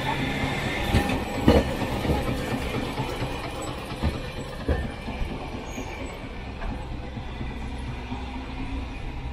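Streetcar passing close by on street-running track: its wheels knock sharply over the rails a few times in the first five seconds over a steady rumble, with a thin high squeal in the first couple of seconds, then the sound eases as it pulls away.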